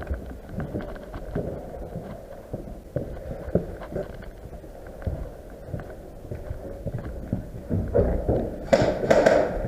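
Irregular footsteps on a hard floor with gear knocking and rustling as an airsoft player moves, and a louder, noisier burst near the end.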